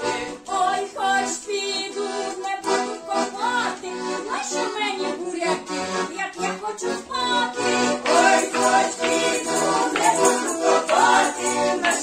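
Accordion playing a Ukrainian folk-song tune, accompanied by maracas shaken in rhythm.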